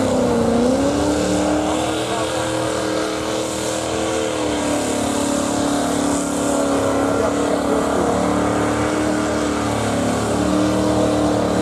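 Mud truck's engine running hard as the big-tired pickup churns through a deep mud pit. Its pitch dips and climbs back about a second in, then holds steady, stepping down slightly around four and a half seconds in.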